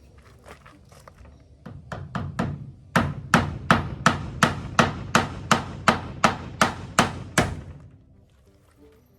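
A hammer driving a nail into wood. A few lighter taps are followed by about a dozen hard, even blows at roughly three a second, which stop shortly before the end.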